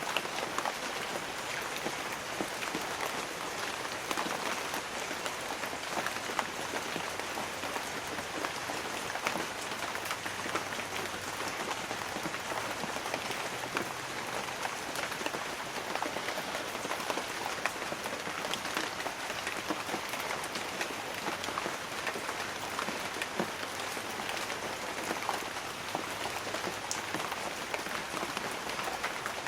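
Light rain falling on banana leaves: a steady patter of many small, separate drops.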